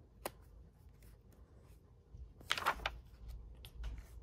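A picture book's paper page being turned by hand: a light tap, then a swish and rustle of the page about two and a half seconds in.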